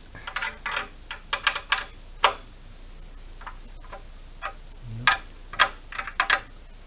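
Sharp metallic clicks in small irregular groups as a wrench tightens an acorn nut onto a bolt through the indoor cycling bike's steel stabilizer bar.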